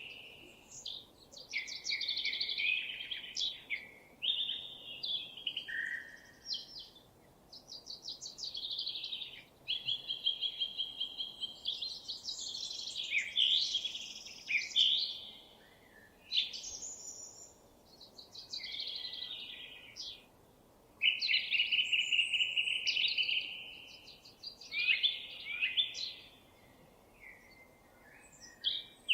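Songbird singing a long, varied run of high-pitched phrases: quick trills, chattering note series and whistled glides, with short pauses between phrases.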